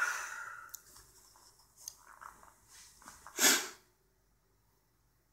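Breath noises from a person close to the microphone: a sudden breathy burst at the start that fades over about a second, then a louder short, sharp breath about three and a half seconds in.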